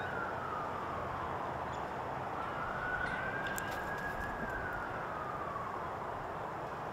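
An emergency vehicle siren on a slow wail: the pitch falls just after the start, climbs again about two seconds in, holds, and falls once more about five seconds in, over a steady background hiss.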